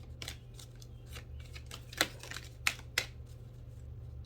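Tarot cards being handled on a table: scattered light clicks and taps, with three sharper snaps about two to three seconds in. A low steady hum runs underneath.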